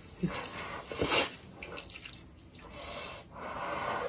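Wet slurping and chewing of wide noodles in a spicy oily sauce, in a few short bursts, the loudest about a second in.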